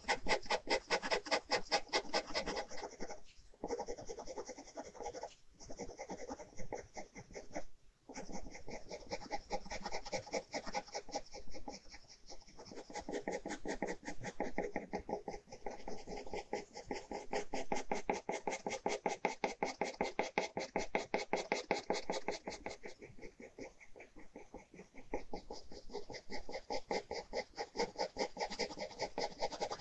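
Ballpoint pen hatching on paper: quick, even back-and-forth scratching strokes, many a second, as the pen shades. The pen lifts briefly a few times in the first eight seconds, then the strokes run on steadily.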